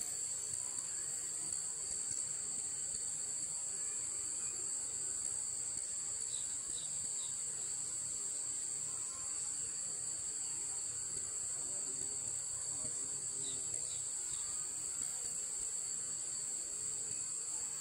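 Steady high-pitched insect chorus trilling without a break, with a few faint short chirps about six seconds in and again near fourteen seconds.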